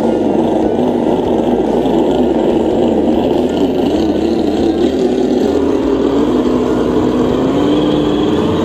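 Simulated engine sound from the Yikong Bronco RC crawler's engine sound module, a steady rumble that rises in pitch over the last couple of seconds as it revs up.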